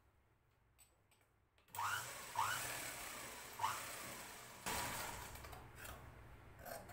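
Sewing machine running in two short bursts of stitching: it starts suddenly about two seconds in with a steady hum, eases off, and starts again a little before five seconds in. A few faint clicks of cloth being handled come before it.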